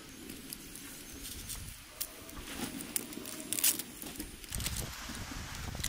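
Dry, papery onion skin crackling and rustling as an onion is peeled and trimmed with a knife. The crackles come short and irregular.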